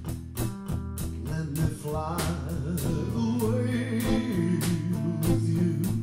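Acoustic guitar strummed in a slow, even rhythm, joined about a second and a half in by a man singing a slow ballad melody.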